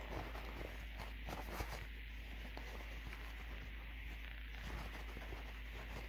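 Faint rustling of a paper towel rubbed over a small greasy plastic gear from a blend door actuator, as the old grease is wiped off. A few light clicks and taps of the plastic parts come in the first couple of seconds.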